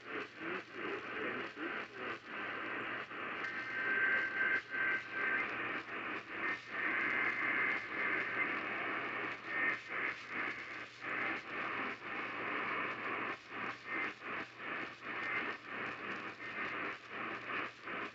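Radio static and hiss from a weakly received station, the noise dipping out briefly many times as the signal fades. A faint thin whistle comes through about four seconds in.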